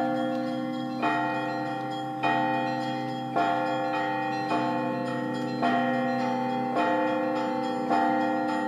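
Church bells ringing, a strike about every second, each note ringing on into the next. The pitch changes from strike to strike as different bells sound in turn over a steady low hum.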